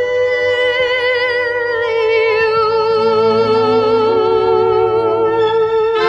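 Orchestral show-tune music: one long high note held with vibrato over sustained lower chords, with the fuller sound of the orchestra swelling in right at the end.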